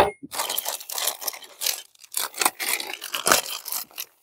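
A series of short, irregular scraping strokes as the left pedal is threaded into the bike's crank arm and tightened with a wrench.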